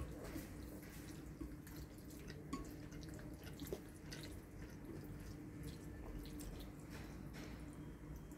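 Quiet eating sounds: faint, scattered small clicks and wet ticks as spaghetti is worked and eaten with chopsticks from a bowl, over a steady low hum.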